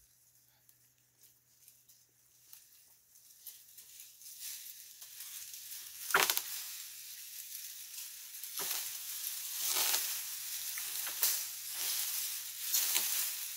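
Wood cracking and branches and dry leaves rustling as a cut tree gives way. It starts faint and builds from about four seconds in, with a sharp crack about six seconds in and more cracks every second or so after.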